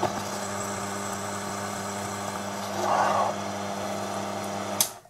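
Proxxon PD 250/e mini lathe running with a steady motor hum while a high-speed steel end mill in the tailstock chuck squares the bottom of a drilled hole in a leaded mild steel part. There is a brief louder patch of noise about three seconds in, and the sound cuts off suddenly with a click near the end.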